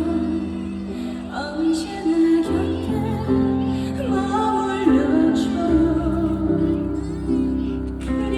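Slow ballad with a woman singing long, gliding notes over a backing track with sustained bass.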